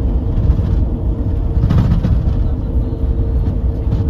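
Steady low rumble of engine and road noise inside a moving minibus, with a faint steady whine running under it.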